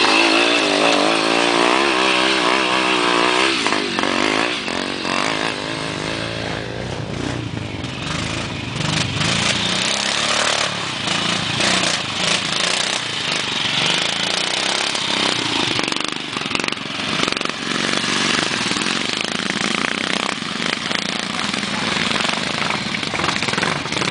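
Trials motorcycle engines revving up and down as the bikes climb over rocks. One bike is close by at first, its pitch rising and falling quickly. After about four seconds the sound turns into a rougher, less clearly pitched engine noise that keeps going.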